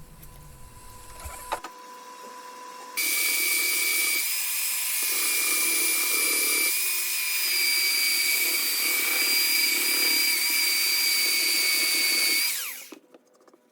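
Circular saw cutting the MDF and pine form off an epoxy tabletop. About three seconds in it starts a loud, steady high whine, which winds down with a falling pitch near the end.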